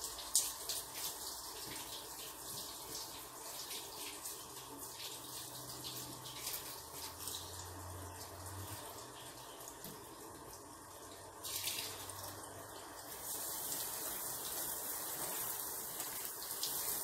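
Water running from a hose and splashing, with a constant spatter; it gets louder about eleven and a half seconds in and again a little later.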